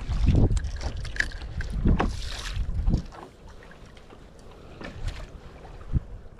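Wind buffeting the microphone and choppy water slapping against the side of a small wooden fishing boat, in gusty surges with a few knocks, dropping off sharply about three seconds in to a softer wash with an odd knock.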